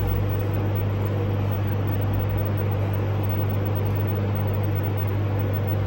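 Steady low hum over an even hiss, unchanging throughout: the constant drone of a fan, air conditioner or electrical background noise.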